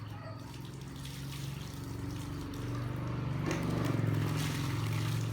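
Water running and trickling while a dog is washed, over a low steady hum that grows louder about halfway through.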